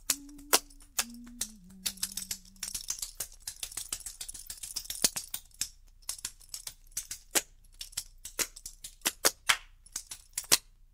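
End of a folk song on a record: a few held notes step down in pitch over the first couple of seconds, then the music falls away, leaving irregular sharp clicks and crackle.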